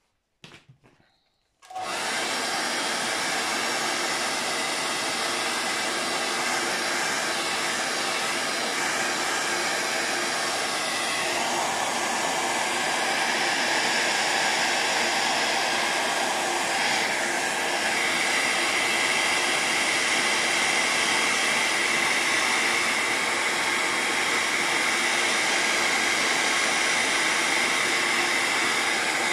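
A hair dryer switches on about two seconds in and runs steadily, drying a layer of paint on paper. Its tone shifts slightly a couple of times, growing a little louder partway through.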